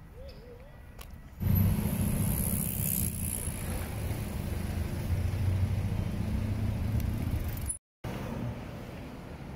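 Road traffic: a motor vehicle's steady low engine rumble with tyre hiss, coming in suddenly about a second and a half in and cutting off near the end, after which quieter street traffic noise remains.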